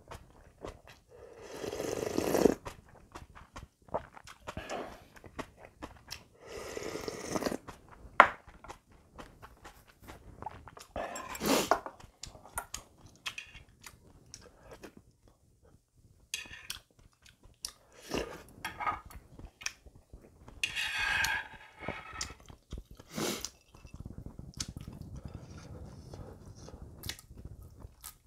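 Close-up eating sounds: several slurps of ramyeon broth from a spoon and chewing, with short clicks of the spoon and chopsticks against the bowl.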